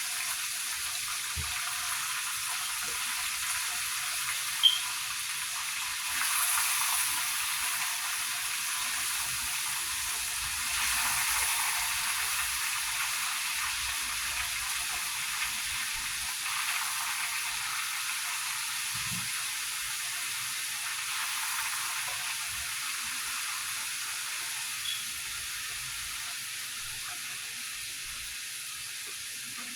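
Battered chicken pieces frying in hot oil in a skillet: a steady sizzle that swells a little now and then, with one sharp click about four and a half seconds in.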